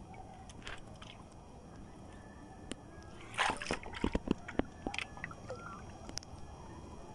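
Water sloshing and splashing against a small boat's hull, with a louder splash about three and a half seconds in. A few sharp clicks and knocks follow just after it.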